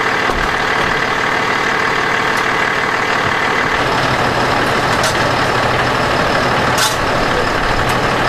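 Fire engine's diesel engine idling steadily, with a short hiss about seven seconds in.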